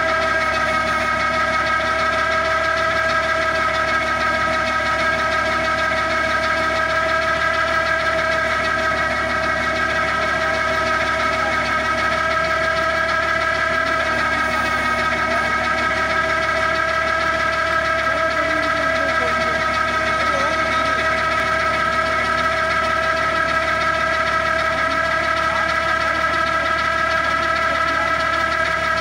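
Tractor-mounted hydraulic auger (piling machine) on a Massey Ferguson 9500 boring into soil. The tractor engine runs steadily under a constant high whine made of several pitches.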